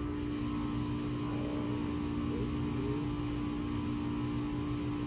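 A steady machine hum with one constant low tone.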